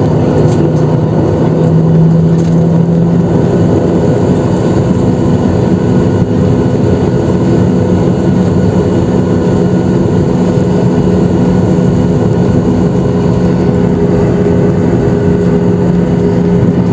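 Airliner jet engines running, heard from inside the passenger cabin as the aircraft moves on the ground: a loud, steady drone with several steady humming tones.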